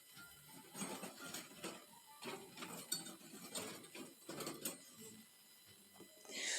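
Faint, irregular clicking and rattling: several short bursts of small mechanical clicks over about four seconds.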